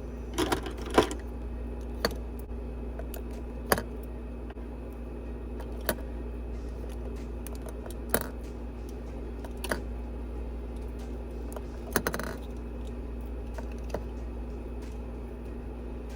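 Makeup pencils (lip liners and eyeliners) clicking and tapping as they are set down one at a time into an organiser drawer, a sharp click every second or two, over a steady low hum.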